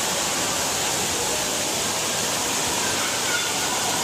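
Steady rush of falling and splashing water from an indoor water park's slides and water features, with no distinct events.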